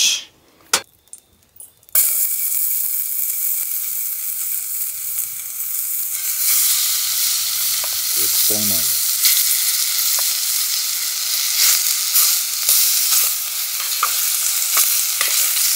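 Bite-size pieces of seasoned chicken thigh hitting a hot pan and frying with a loud, steady sizzle that starts suddenly about two seconds in, after a few knocks.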